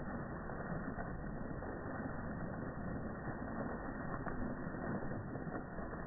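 Fountain jets splashing steadily into a stone pool.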